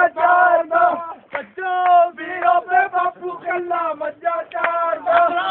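Male voices singing loudly in Punjabi, in quick syllables broken by a few briefly held notes.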